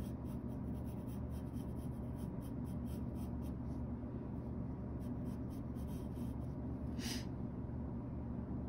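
Graphite pencil sketching lightly on sketchbook paper: a run of short, faint scratchy strokes, with one louder stroke about seven seconds in.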